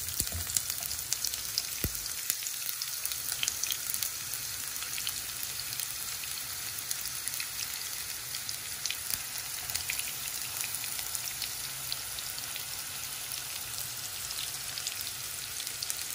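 Sliced red onions frying in hot cooking oil in a non-stick wok: a steady sizzling hiss with frequent small crackles, busiest in the first few seconds after the onions go in.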